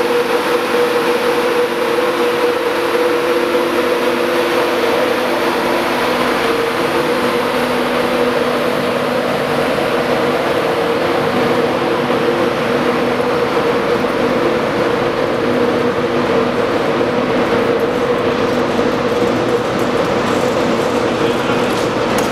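LNER Class 91 electric locomotive standing with its electrical equipment running: a steady hum carrying a clear, unchanging tone.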